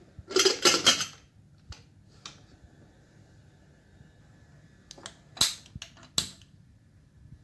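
Metal clatter of an aluminium pressure cooker being handled in the first second, then a few sharp clicks about five to six seconds in as it goes onto the gas stove and a hand-held spark lighter is worked at the burner.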